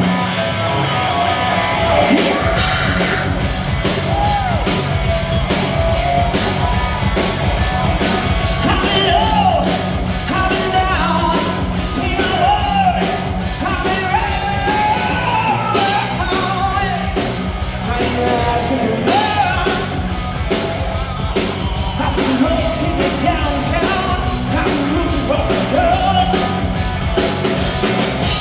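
Rock band playing live: a male singer singing into a microphone over electric guitar and a steady beat.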